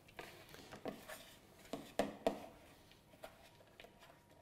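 Faint, scattered knocks and rubbing from hands working sablé dough in a ceramic mixing bowl, and a plastic board being set down on the marble counter; the clearest knocks come about two seconds in.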